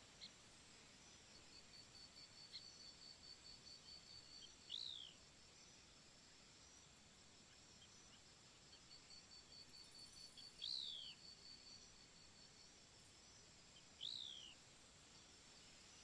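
Faint outdoor ambience with three short, falling whistled bird calls spaced several seconds apart, the loudest sounds. Underneath runs a faint, rapidly pulsing high insect trill that comes and goes.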